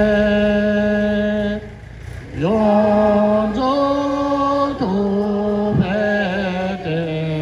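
Slow chanted singing: voices holding long notes and stepping or gliding between a few pitches, with a short breath pause about two seconds in.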